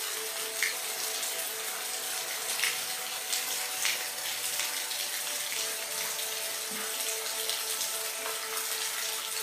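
Steady rain falling, an even hiss with scattered faint drop ticks, over faint steady tones.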